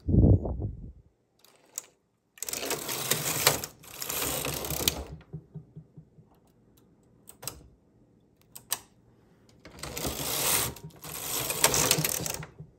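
Knitting-machine carriage on a Singer 328 pushed across the needle bed twice, each pass a rattling swish of about two and a half seconds as a row is knitted. Light clicks from the needles and transfer tool come between the passes, and a low thump is heard at the very start.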